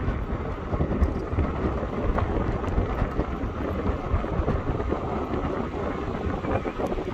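Wind buffeting the microphone of a camera moving along on an electric unicycle: a gusty, uneven low rumble.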